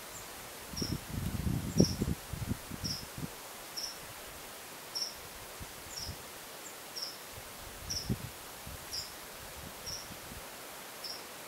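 Outdoor woodland ambience: wind gusts buffet the microphone in the first few seconds and again briefly near the end, over a steady series of short, high chirps, a little more than one a second.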